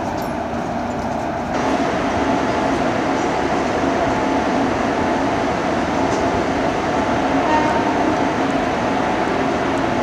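WAP-4 electric locomotive running steadily beside the platform with a loud, even mechanical drone, which gets louder about one and a half seconds in.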